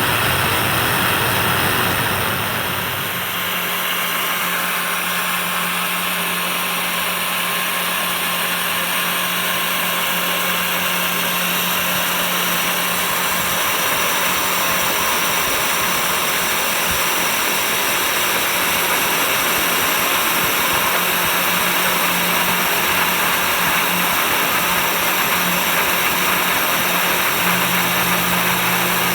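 A vacuum dust extractor and the spindle motor of a small CNC 3018 desktop router running steadily together, a constant rushing hiss over a steady motor hum. The sound changes about three seconds in, as the low rumble drops away.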